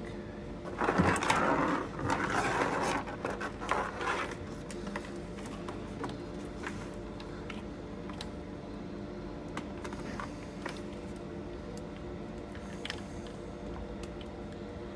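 Wiring cable being pulled and fed along a van's bare A-pillar, rubbing and scraping against it in a noisy stretch of about three seconds near the start, followed by light clicks and taps as it is handled, over a steady low hum.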